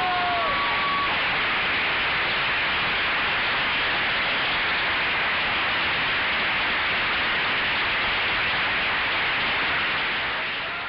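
A crowd applauding steadily as one even wash of clapping, fading out near the end. The last notes of the tango music die away at the very start.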